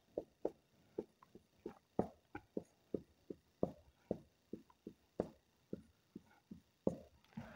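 Marker pen drawing short strokes on a whiteboard, about three strokes a second, each a brief scratch, as bond lines and letters are written.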